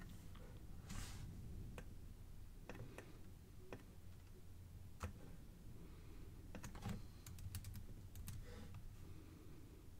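Faint, irregular clicks from a computer keyboard and mouse being worked, with a quicker run of taps after about seven seconds.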